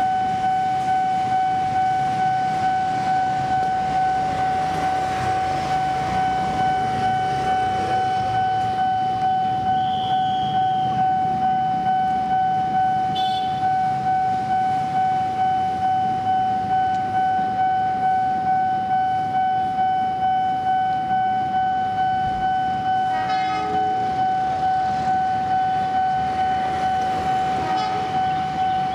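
Level-crossing warning alarm sounding a steady single-pitched tone that pulses about twice a second, over the low rumble of an approaching CC 201 diesel locomotive. About three-quarters of the way through, the locomotive horn gives a short blast.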